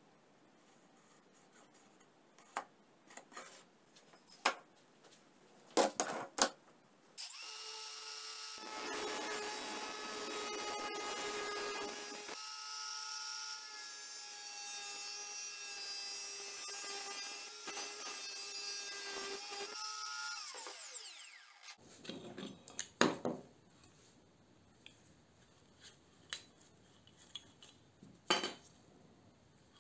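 Greenworks angle grinder with a cutting disc cutting through a steel angle, running steadily for about fourteen seconds from about seven seconds in, its pitch falling as the disc spins down at the end of the cut. Light clicks and knocks of handling the workpiece come before and after.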